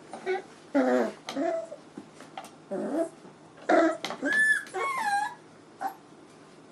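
Month-old puppies whining and yelping: a string of short, high calls that bend up and down in pitch.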